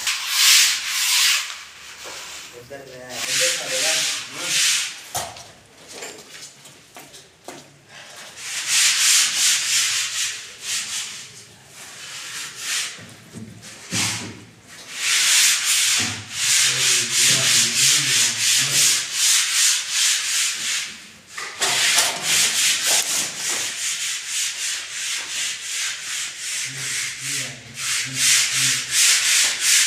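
Hand sanding of a false ceiling: quick back-and-forth rasping strokes of sandpaper on the board, in spells of several seconds with short pauses, and a single knock about halfway through.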